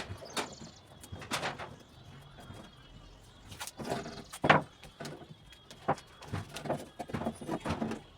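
Irregular taps and knocks, several with a brief hiss.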